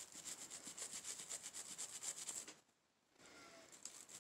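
A stiff gun-cleaning brush scrubbing back and forth in quick strokes, several a second, over the ejector notches of an AK-47 bolt to loosen built-up grit and grime. The scrubbing stops briefly over halfway through, then resumes more softly.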